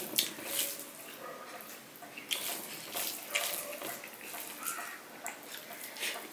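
Fingers squeezing and mixing rice with a wet mashed greens dish (shak ghonto) on a steel plate: a run of wet squelches and small clicks, ending with a handful lifted to the mouth.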